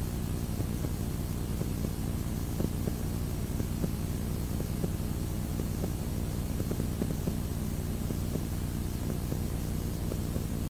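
A steady low rumble with hiss and faint crackling, cutting off suddenly at the end.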